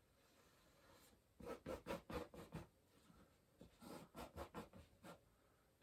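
Brush scrubbing oil paint hard into a canvas: faint, scratchy rubbing in quick strokes, in two runs, one starting about a second and a half in and another near four seconds.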